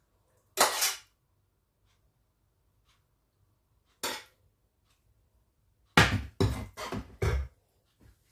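Metal serving spoon scraping and knocking against a stainless steel frying pan while noodles are served from it: one stroke about half a second in, another about four seconds in, then a quick run of five or six heavier knocks about six seconds in.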